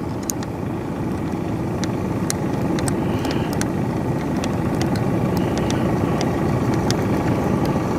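A boat engine running steadily, a low drone that slowly grows louder, with scattered light clicks over it.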